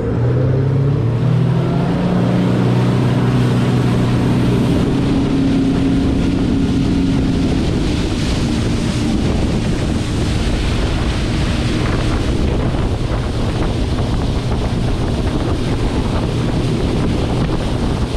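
Bass boat's outboard motor running under way, its pitch rising a little in the first second or two, then fading under a steady rush of wind on the microphone and water spray from about halfway.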